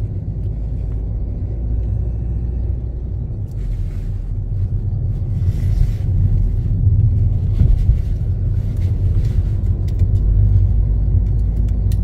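Car driving on a country road, heard from inside the cabin: a steady low rumble of engine and tyres that grows somewhat louder about halfway through.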